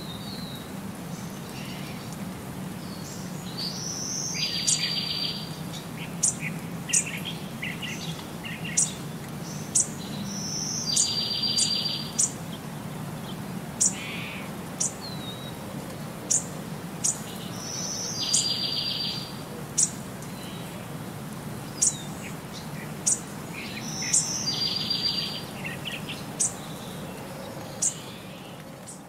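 Birdsong: a short buzzy trill repeated four times, about every seven seconds, with many sharp high chirps in between, over a steady low background hum.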